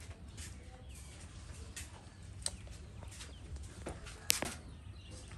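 Close-up soft clicking and crackling as a monkey's fingers pick and part a man's hair while grooming his head, with a sharper click about four and a half seconds in.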